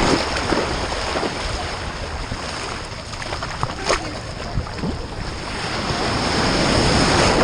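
Ocean surf washing and wind buffeting the microphone of a GoPro worn on a dog's back, swelling louder near the end. One sharp click about four seconds in.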